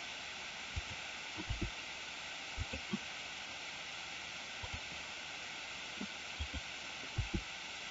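Steady recording hiss with a dozen or so faint, short, low thumps scattered through it, typical of a desk microphone during a pause in screen-recording narration.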